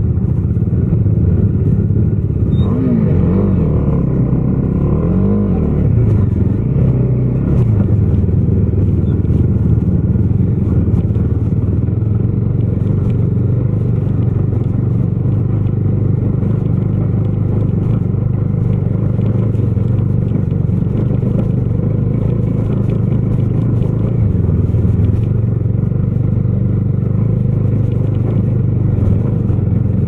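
Bajaj Dominar 250's single-cylinder engine running as the motorcycle is ridden. Its pitch rises and falls a few times in the first several seconds, then holds steady.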